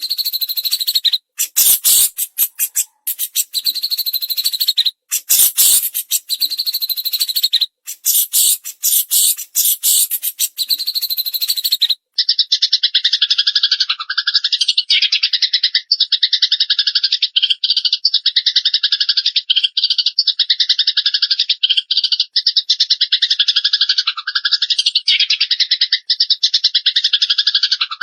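Songbird master recording of a cililin and a fighting Eurasian tree sparrow. A rapid, harsh high chatter broken by short pauses cuts off suddenly about twelve seconds in. A different bird's continuous fast, pulsing trill follows.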